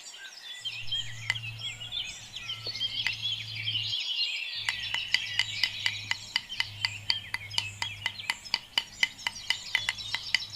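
Many small birds chirping, over a low steady hum that drops out briefly in the middle. From about halfway, a fast run of sharp clicks, about four a second, joins in.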